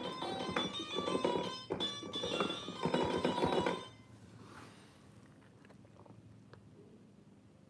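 Notes played on a MIDI keyboard through a phone arranger (org) app set to a guitar voice, a quick run of short notes that stops about four seconds in. After that, only faint room noise.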